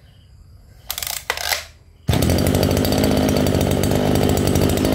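The recoil starter of a STIHL 26 cc two-stroke brushcutter is pulled lightly, giving a brief rasp about a second in. The engine catches about two seconds in and then runs steadily. The spring-assisted starter gets it going with an easy pull.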